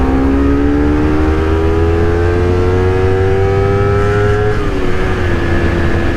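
Honda CBR250RR parallel-twin engine accelerating hard in one gear, its pitch climbing steadily for about four and a half seconds, then dropping with an upshift and holding steady. Heavy wind rumble on the helmet microphone runs underneath.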